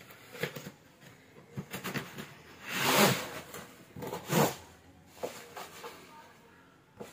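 Cardboard box sliding off a hard plastic tool carry case, with rustling and scraping and a few light knocks. The two loudest scrapes come about three and about four and a half seconds in.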